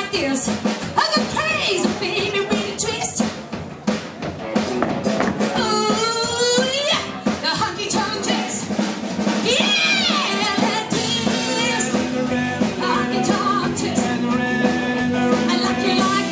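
A woman singing into a microphone over loud, drum-led live music.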